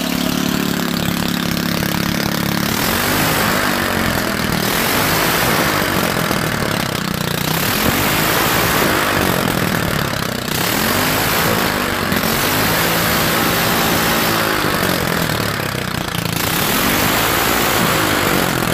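See-through glass-head Briggs & Stratton single-cylinder engine running loud on nitromethane, its speed rising and falling several times.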